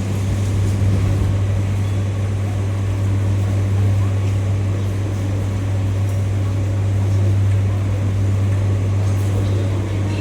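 Moscow Metro train at a station: a steady low hum under an even rumble, with no rise or fall in level.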